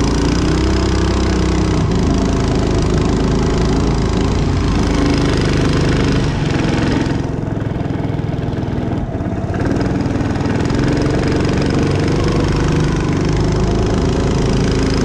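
Mud Skipper 7.5 hp surface-drive mud motor, a small Hemi engine, running steadily as it pushes a jon boat along, with water and wind noise from the hull; the sound dips briefly about halfway through.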